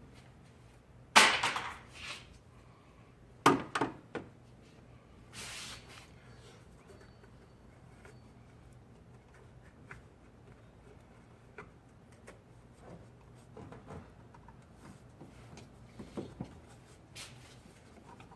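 A few sharp clicks and knocks, the loudest about a second in and a close pair around three and a half seconds in, then a short rustle and scattered light ticks: hand work pulling clips, hoses and airbox parts loose in a car's engine bay.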